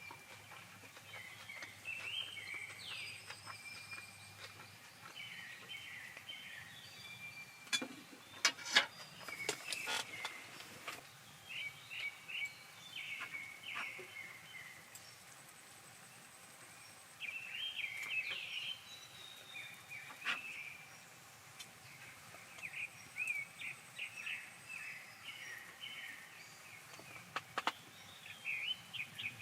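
Small birds chirping and singing over and over, short high calls that come in runs. A few sharp clicks or knocks come about eight to ten seconds in and again near the end, louder than the birds.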